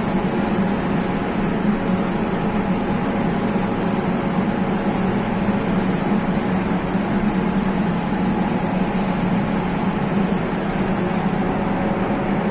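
A steady mechanical drone with a faint crackling hiss over it. The hiss cuts off about eleven seconds in while the drone runs on.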